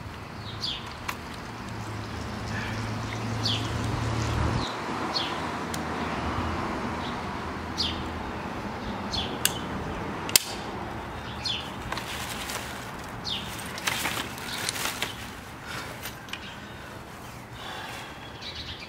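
Birds chirping in short, scattered calls, with the clicks and knocks of a rollator walker's frame parts being handled and fitted together, one sharp click about ten seconds in. A low hum underneath cuts off suddenly a little before five seconds.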